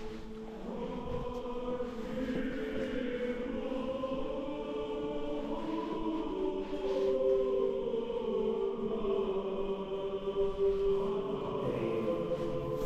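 Slow choral chant with long held notes.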